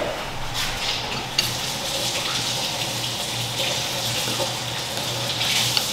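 Water running steadily from a sink tap as hands are washed under it, with a single short knock about a second and a half in.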